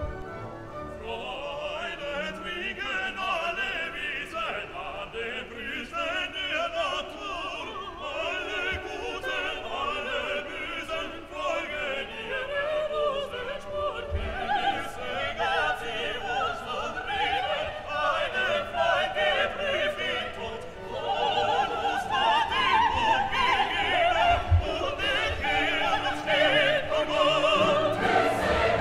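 Background music: an operatic classical piece with singing.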